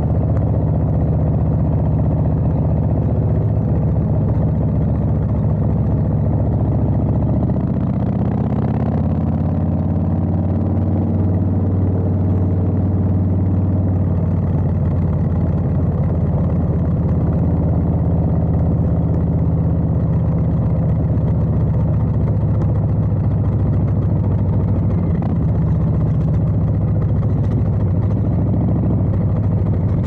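Stage 2 Harley-Davidson Street Bob V-twin running at low revs through Bassani sweeper exhaust pipes, a steady deep exhaust note. About eight seconds in the revs rise and fall with the throttle for a few seconds before settling back to a low, even pace.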